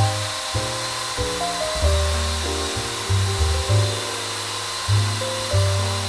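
Background music with held notes and a bass line that changes every second or so, over a steady high hiss.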